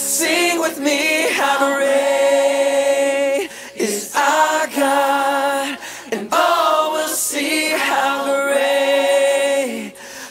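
Soundtrack song: several voices singing long held notes in harmony, a cappella, in phrases a few seconds long with brief breaths between them.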